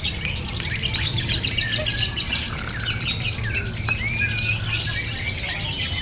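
Lovebird singing a fast, unbroken run of high chirps, twitters and short gliding notes, over a steady low background rumble.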